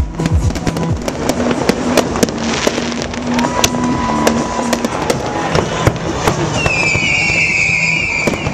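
Aerial fireworks display: many sharp bangs and crackles from bursting shells, with a high wavering whistle near the end.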